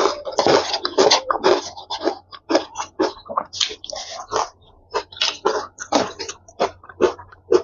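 Close-miked eating of spicy instant noodles with chopsticks: a quick, irregular run of wet slurps and smacking chews.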